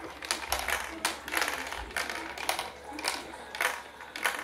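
Marbles rolling and clattering down a plastic marble-run track: an irregular run of clicks and rattles as they hit the rails and pieces.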